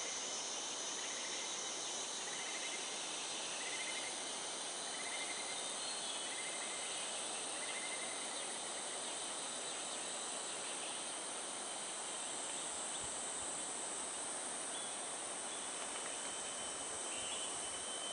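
Tropical rainforest insect chorus: a steady, high-pitched buzzing drone that does not let up. Over it, in the first half, a short buzzy trill repeats six times at an even pace, about every second and a half.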